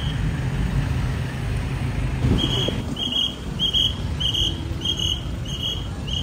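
An electronic beeper sounding short, evenly spaced high beeps, a little under two a second, starting about two seconds in, over the steady rumble of road traffic.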